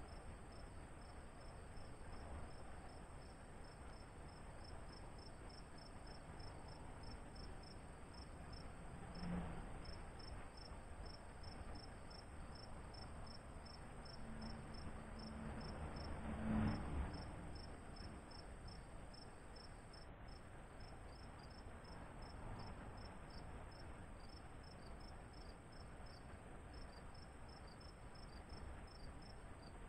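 Insects chirping in a steady, fast run of high pulses, about three a second, over a thin steady high whine and a faint low background hum. A low hum swells and fades twice, most clearly about sixteen seconds in.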